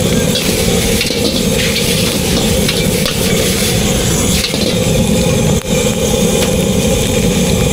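Food sizzling and frying over a loud, steady roar.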